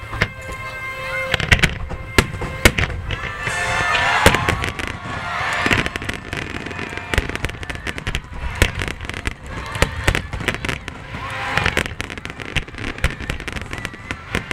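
Fireworks display: aerial shells bursting in a rapid series of sharp bangs and crackles.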